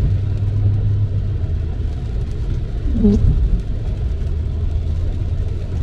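Car on a wet road in the rain, heard inside the cabin as a steady low rumble of tyres and engine. The windshield wiper gives a short dragging squeak as it sweeps the glass, just at the start and again about three seconds in: the wiper blade is stiff on the glass.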